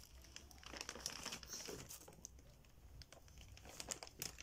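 Faint crinkling of a plastic bag, in irregular short crackles, as a toddler lies on it and presses into it.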